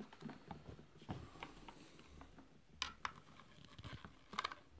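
Faint scattered clicks and light taps of a plastic hand blender housing being handled during disassembly, with a sharper tick near the middle and another near the end.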